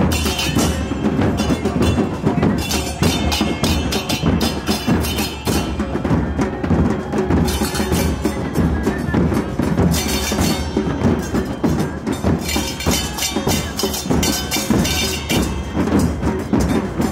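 Percussion music: drums and other struck instruments playing together in a busy, steady rhythm.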